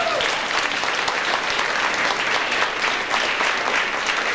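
Audience applauding: many hands clapping densely at a steady level.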